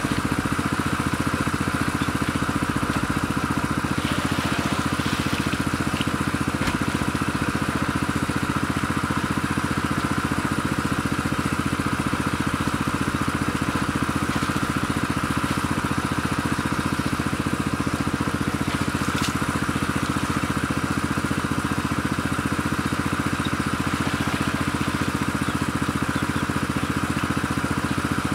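Small engine running steadily at one constant speed, the kind that drives a water pump draining a pond through a hose.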